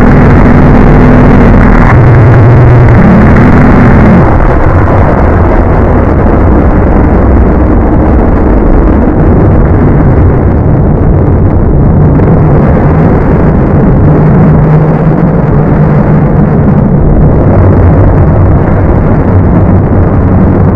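Extremely loud, harshly distorted noise that stays at full volume, muffled with nothing above the mid range, with low droning tones that come and go.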